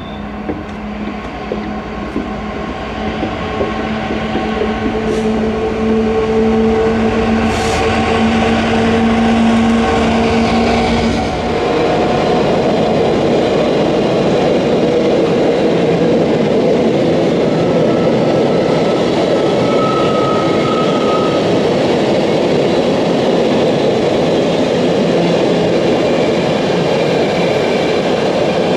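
Class 66 diesel freight locomotive and its two-stroke V12 engine approaching and passing, a steady engine hum growing louder. About twelve seconds in the engine note drops away and a long train of empty container flat wagons rumbles and clatters steadily past.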